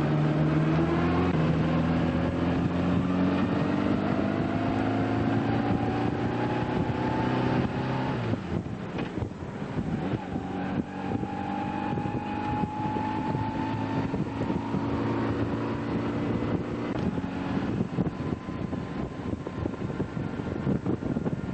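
Motorcycle engine running as the bike accelerates, its note climbing steadily for about eight seconds. Then wind buffeting the microphone takes over, with the engine still heard under it.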